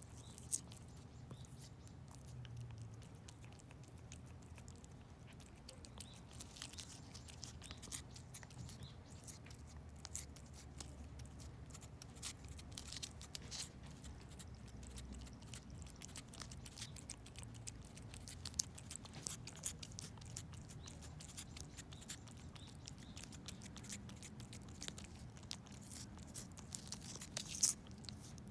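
A cat licking and chewing a Churu lickable treat: a faint, quick run of small wet clicks, with a few sharper ticks.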